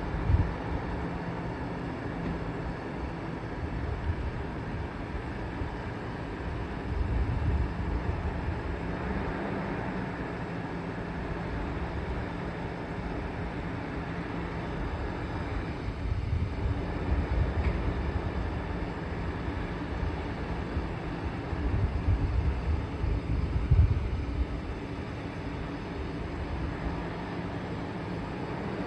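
Garbage truck engine running steadily, with low rumbling swells as it works and a single sharp knock late on.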